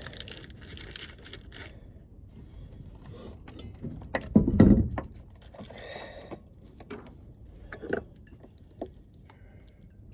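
Camp cookware and containers being handled while measuring water for rice: rustling and scraping, one heavy thump about four and a half seconds in, then a few light knocks and clicks.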